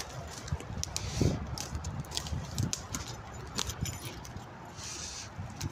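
Footsteps crunching through dry twigs and leaf litter, with small sticks snapping underfoot and a louder crack about a second in.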